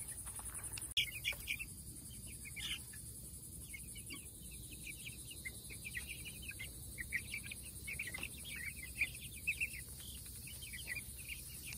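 A pen of young meat chickens with a few ducklings peeping in many short, high chirps, scattered throughout, over a steady high trill of insects.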